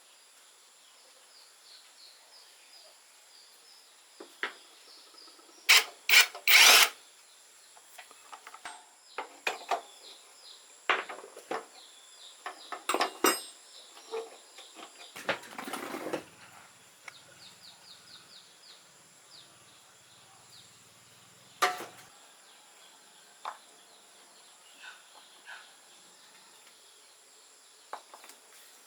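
Intermittent hand-tool work on motorcycle parts: scattered sharp clicks, knocks and short scrapes, the loudest a quick cluster of clacks about six seconds in. Insects chirp faintly behind.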